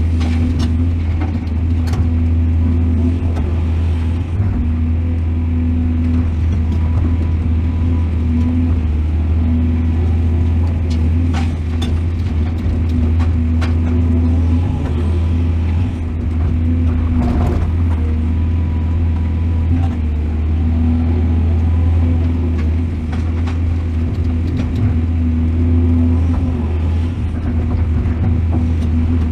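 Heavy excavator's diesel engine running steadily at an even speed, with scattered faint knocks and clanks.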